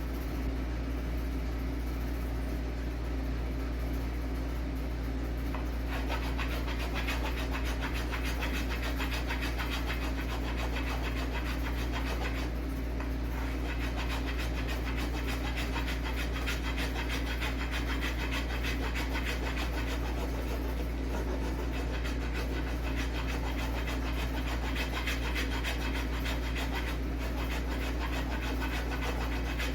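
A wood rasp scraping across the apple-wood adze handle in quick, continuous strokes, louder from about six seconds in, with a few short pauses, over a steady low hum.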